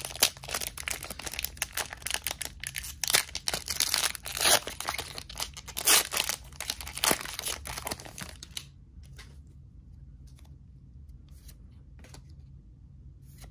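Foil trading-card booster pack wrapper being torn open and crinkled by hand, a dense crackling rustle that lasts about eight seconds. After that it goes much quieter, with only a few faint ticks as the cards are handled.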